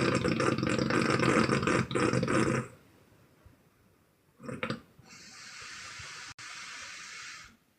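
A sleeping woman snoring: a loud rasping snore lasting about two and a half seconds, then after a pause a short snort and a long, even puff of breath blown out.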